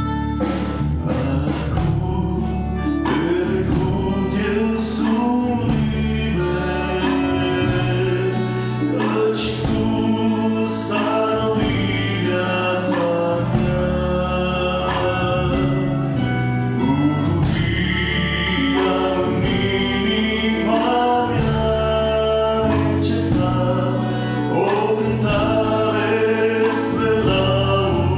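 A man singing a Christian worship song into a microphone, backed by a live band with drum kit and acoustic guitar over a steady bass line, with cymbal crashes every few seconds.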